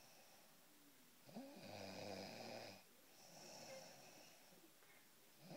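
A person snoring in sleep: a low, pitched snore about a second and a half long, then a softer, breathy breath, with the next snore starting near the end.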